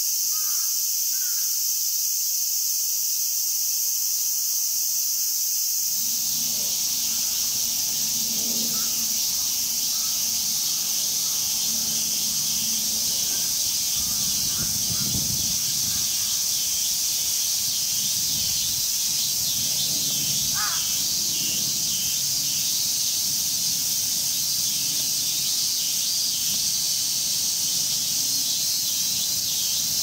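Cicadas singing in chorus, a steady high-pitched buzz, with a crow cawing now and then. A low background rumble comes in about six seconds in.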